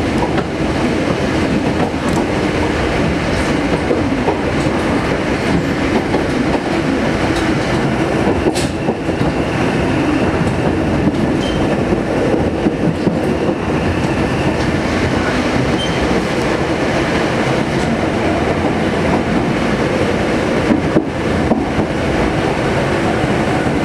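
Inside the passenger car of a Sangi Railway Sangi Line electric train running along the line: a steady rumble of wheels on rail, with a few faint clicks.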